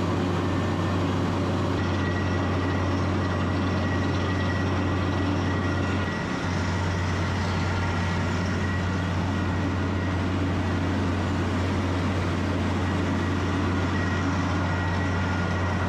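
Schramm 450WS well-drilling rig's diesel engine running steadily under load while air-rotary drilling at about 570 feet, with a low, even hum. A thin, steady high whine joins about two seconds in, and the level dips briefly about six seconds in.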